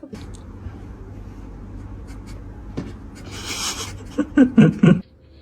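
A cat hissing briefly, then four short, loud cries, the defensive noises of a cat that does not want to be touched, over a steady low rumble.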